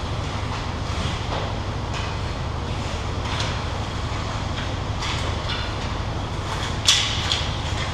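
Youth ice hockey game: skates scraping on the ice over a steady low rumble in the rink, with one sharp clack near the end, a puck or stick hitting the boards or glass close by.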